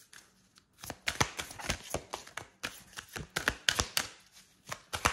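Oracle card deck being shuffled by hand: a run of quick, irregular card slaps and flicks in clusters, starting about a second in.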